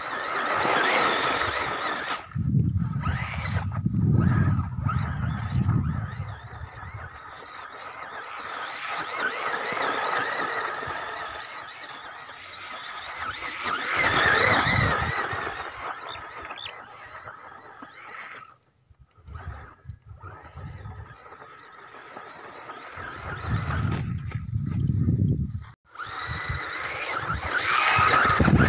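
ZD Racing B10E 1/10 RC buggy's brushless motor (3650, 3900 kV, on 3S) whining as it is driven on grass and dirt, the pitch climbing and falling with the throttle, with low rumbles of tyres, knocks or wind on the microphone. The sound cuts out briefly twice.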